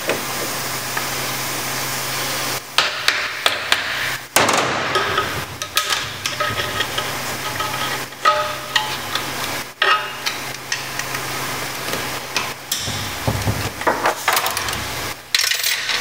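A screwdriver clicking, tapping and scraping irregularly against a 700R4 transmission's case as it pries at the side servo cover and its retainer, over a steady low hum.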